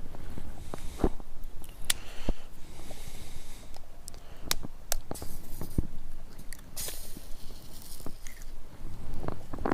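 Eggs being cracked into a small camping frying pan: sharp clicks and crunching of shell, with several short bursts of hiss.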